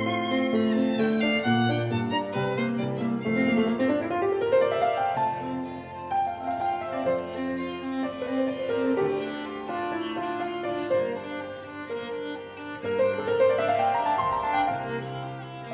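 Instrumental background music led by violin over a piano accompaniment, with quick rising runs of notes about four seconds in and again near the end.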